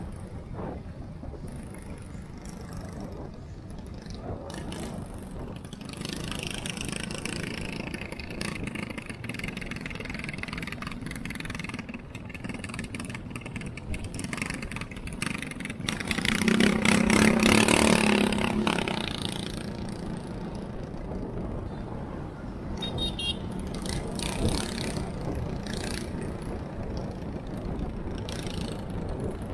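Motorcycle riding along a town street: engine running steadily with road and wind noise, and a louder swell of engine noise a little past the middle.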